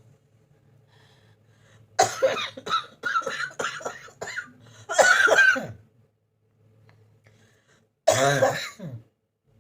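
A person coughing hard: a quick run of about six coughs some two seconds in, then one longer harsh cough, and another fit of coughing near the end.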